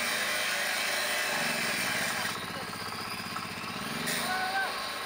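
An angle grinder running with a steady, dense noise that thins about two seconds in, and a man calling out near the end to have the grinder switched off.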